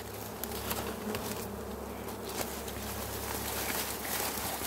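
A swarm of dwarf honey bees (Apis florea) buzzing in a steady hum around their single exposed comb.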